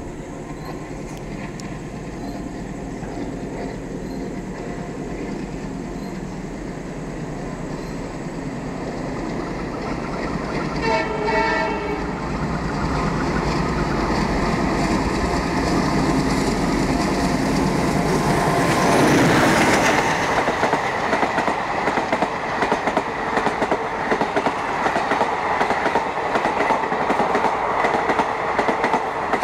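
Rebuilt WDM-3A diesel-electric locomotive approaching at speed with its ALCO 16-cylinder engine working at full power. Its horn sounds briefly about eleven seconds in, and the engine grows louder until the locomotive passes at its loudest a little before twenty seconds. The passenger coaches then rush by with a rhythmic clatter of wheels over the rail joints.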